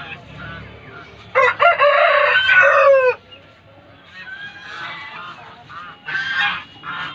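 Aseel rooster crowing once, about a second in, a call of nearly two seconds that drops in pitch at the end. Chickens cluck softly after it.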